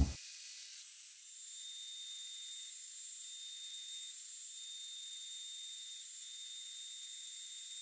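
2x72 belt grinder running as steel is ground against the belt to rough out a blade's profile, heard only as a faint, thin high-pitched hiss with a steady whine and no low end.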